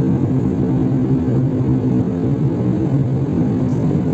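Jet airliner's engines and airflow in flight, heard inside the passenger cabin at a window seat over the engine: a low, even drone with a steady hum under it.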